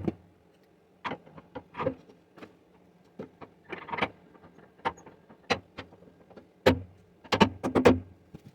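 A string of irregular, sharp knocks and clanks, about a dozen, loudest in a quick cluster near the end, over a faint steady hum.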